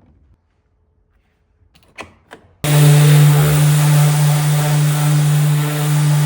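A couple of light clicks, then a corded woodworking machine's electric motor switches on abruptly, about two and a half seconds in. It spins up briefly and runs on loud and steady with a strong low hum.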